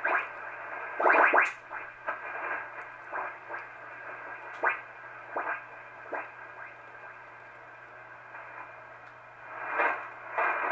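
Heathkit SB-301 receiver being tuned across the sideband portion of a ham band: steady band-noise hiss from its speaker, with brief garbled sideband signals and whistles that sweep in pitch as the dial passes stations, strongest about a second in and again near the end.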